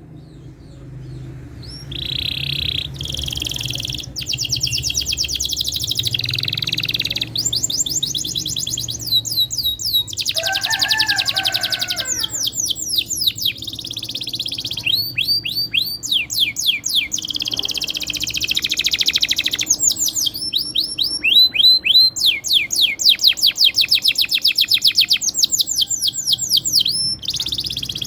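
Domestic canary singing a long rolling song, starting about a second and a half in: tour after tour of rapid trills and fast runs of repeated down-sweeping notes, high-pitched, with one lower warbled phrase in the middle.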